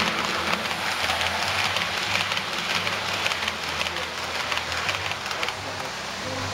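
Model passenger train rolling past close by: a dense rattle of small wheels clicking over the track, with a low motor hum underneath. It eases slightly near the end as the last cars go by.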